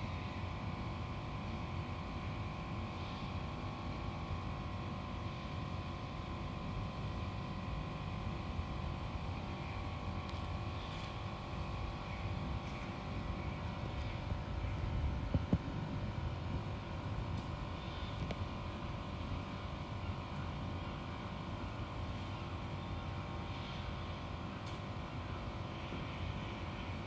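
Steady mechanical hum with a low rumble, with a brief knock about fifteen seconds in.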